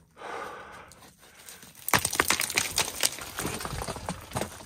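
Boots and gloved hands scrambling on loose, shattered rock scree: stones crunching, clinking and knocking against each other underfoot, a soft scraping at first and a dense clatter of steps from about two seconds in.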